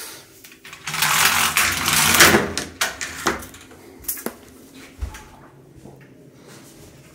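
Roller blind being raised by pulling its bead chain: the chain runs rattling through the clutch mechanism for about two seconds, followed by a few light clicks.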